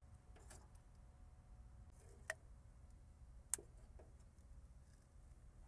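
Near silence with a handful of faint, sharp clicks, the two loudest about two and a half and three and a half seconds in: tools or hands working at a hose connection under the car.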